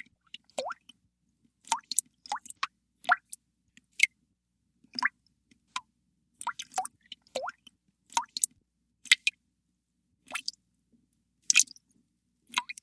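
Water drops dripping into water, a series of separate plinking drips at an uneven pace, several with a quick upward pitch sweep, with silence between them.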